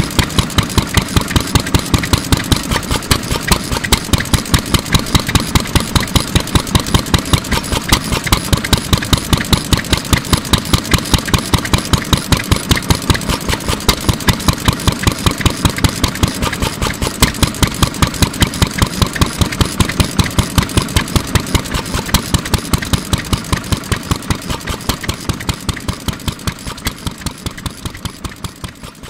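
Shikoku Karui Type M 3 hp single-cylinder stationary oil engine running steadily, with an even, rhythmic exhaust beat of about five or six firings a second. It grows a little quieter near the end.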